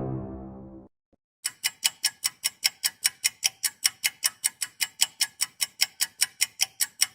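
Ticking sound effect like a fast clock or timer: an even run of sharp ticks, about five a second, lasting several seconds. A music cue fades out just before it, in the first second.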